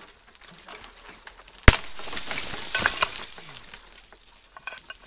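A tree branch snaps with one loud crack under a man's hanging weight about a second and a half in. About two seconds of crackling and rustling follow as he drops into dry brush and twigs.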